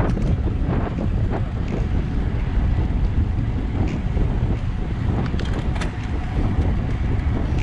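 Wind buffeting the microphone of a camera mounted on a moving road bike: a steady, heavy low rumble, with a few short faint clicks scattered through it.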